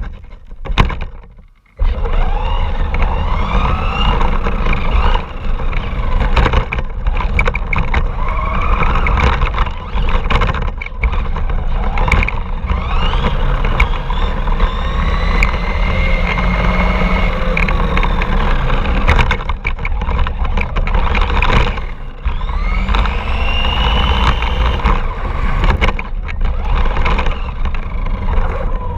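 RC car driving over rough ground: its motor whines up and down in pitch with the throttle over a steady rumble, with frequent knocks and clatter from the wheels and chassis. It starts abruptly about two seconds in.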